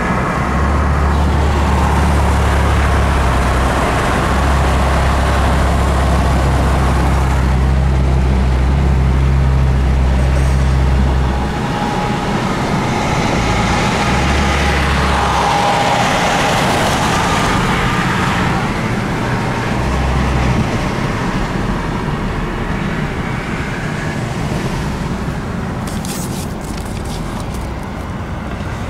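Steady rumble of tyre, road and engine noise heard inside a moving car's cabin, dropping a little in level about twelve seconds in.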